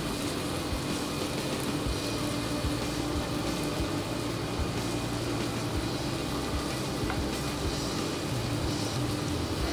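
Steady restaurant-kitchen background noise: an even, sizzle-like hiss with a low steady hum, from onions cooking slowly in a pan and the kitchen's ventilation.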